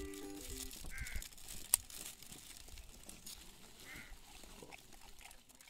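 Background music that stops under a second in, then faint rustling of plastic rain ponchos with a sharp click, and two short high squeaks about three seconds apart.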